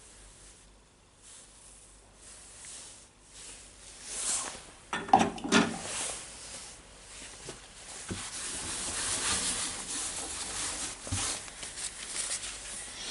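Hand work on tool parts: a few knocks and clatters about five seconds in, then a steady scrubbing or rubbing sound.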